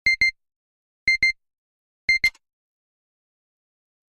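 Short electronic beeps in quick pairs, one pair about every second, three times; a brief noisy click sounds with the third pair.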